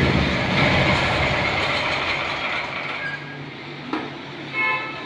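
Portable generator engine running with a low hum that fades steadily away. About four seconds in there is a sharp click, and just after it a brief high-pitched tone.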